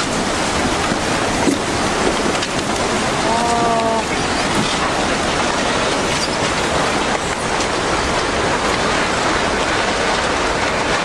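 Tsunami floodwater surging through a town, carrying wrecked houses and debris: a loud, steady rushing noise. A brief pitched call is heard about three and a half seconds in.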